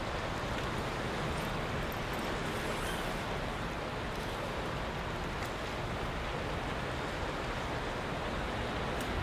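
Steady rushing noise of wind and sea surf along a rocky shore, even throughout with no distinct events.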